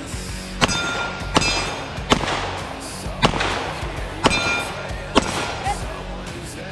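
Six gunshots, about one a second at uneven spacing, with a brief ringing tone after two of them. Background music plays underneath.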